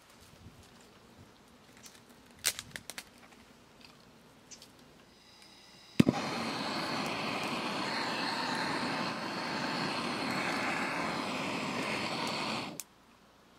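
A handheld gas torch clicks on about halfway through and runs with a steady hiss for about seven seconds, lighting kindling in a fire pit, then cuts off abruptly. Before it, a few snaps and rustles of twigs being handled.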